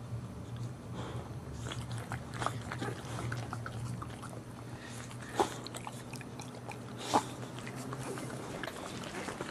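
Boxer mother licking her newborn puppies: wet licking and small mouth clicks, with two brief sharp sounds about five and seven seconds in, over a steady low hum.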